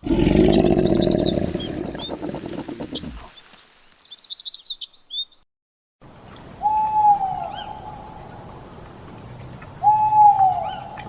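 Birds chirping rapidly and high, at first over a loud low noise that stops about three seconds in. After a short silent break, two hooting bird calls about three seconds apart, each held on one note and then dropping at the end, with faint chirps behind them.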